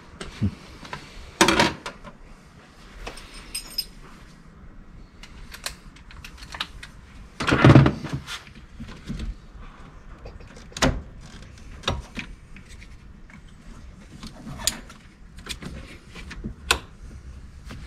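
Scattered clicks, rattles and light knocks of hands handling parts in the IMA battery compartment of a Honda Insight hatch, with a heavier knock about eight seconds in.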